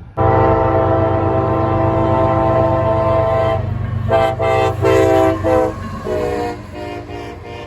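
Amtrak diesel locomotive's multi-note air horn sounding a series of long and short blasts, typical of a grade-crossing signal, over the low rumble of the passing train. The last blast is slightly lower in pitch than the first.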